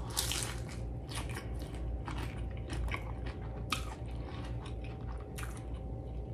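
Close-miked chewing of a mouthful of smash burger: irregular wet mouth clicks and crunchy snaps as she bites and chews.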